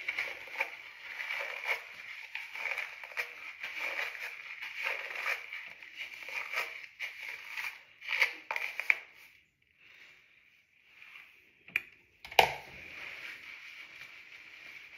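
Fingers working through wet, shampoo-lathered hair in a detangle, an irregular run of short rustling strokes that stops about nine seconds in. After a pause come two sharp knocks, then a faint steady hiss.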